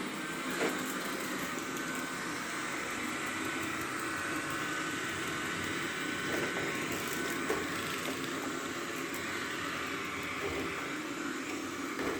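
Roborock Q7 Max robot vacuum running: the steady whir of its suction fan with a thin steady whine, and a few light knocks.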